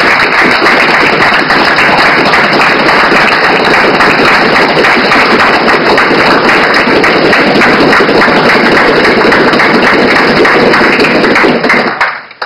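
Applause from a crowd of onlookers, a dense steady clatter of clapping hands that dies away near the end.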